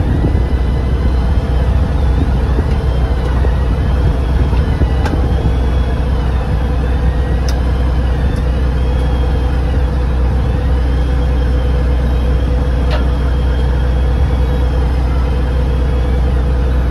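Fishing boat's engine running with a steady low drone, with thin high tones wavering up and down above it.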